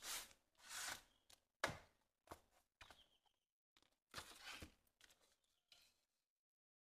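Faint handling noise from swollen lithium-polymer pouch cells being pressed, slid and picked up on a table: about seven short rustles, scrapes and taps with quiet gaps between them.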